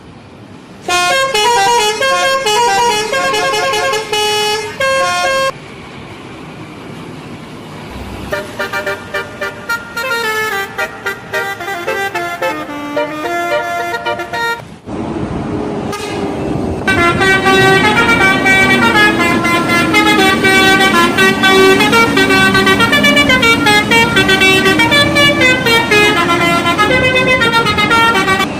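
Bus 'telolet' horn, a multi-tone air horn playing quick stepping melodies, in three bouts: a bright tune over the first few seconds, a softer one in the middle, and the loudest, longest run from a little past halfway until just before the end.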